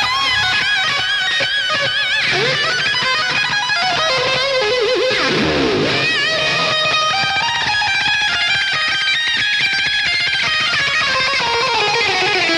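Background music led by an electric guitar, its notes held with wide vibrato and bends, with a swoop down and back up in pitch about five seconds in.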